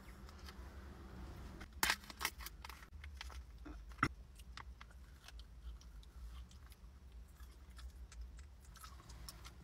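Plastic snack wrappers crinkling as they are handled and opened, with a few sharp crackles about two and four seconds in.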